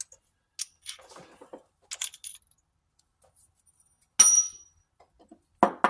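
Metal tools being handled: a few light clicks and rustles, then a sharp metallic clink with a brief high ringing about four seconds in, and a duller knock near the end.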